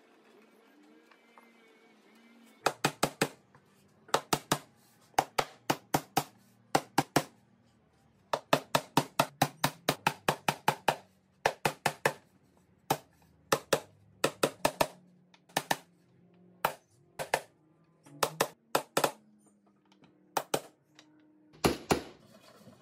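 A claw hammer driving small nails through a round pine top board into the divider panels beneath it, in quick runs of three to six blows with short pauses between. The hollow wooden box rings briefly after each blow.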